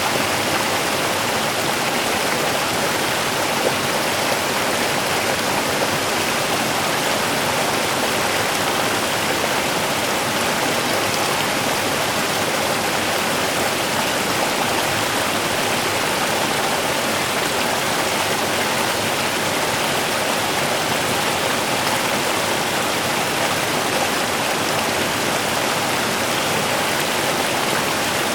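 Small river running over stones: a steady, even rush of water.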